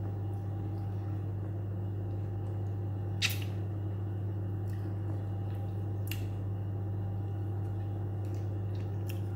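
Steady low electrical hum, with a few short clicks and soft squishy sounds of food being eaten by hand from plates; the loudest click comes about three seconds in.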